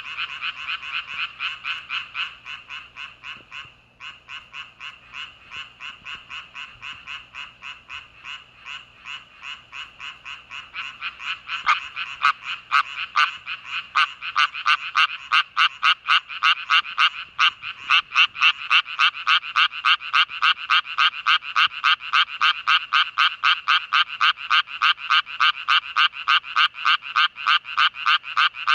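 A chorus of Japanese tree frogs calling: fast, steady trains of rasping croaks, about four a second, growing much louder and closer about twelve seconds in.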